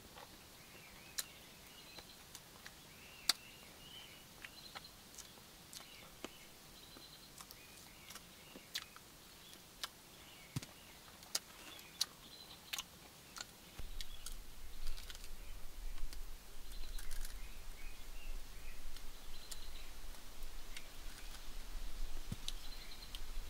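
Jungle ambience with small birds chirping faintly and sharp clicks here and there. About halfway through, a low rumble comes in and the sound grows louder.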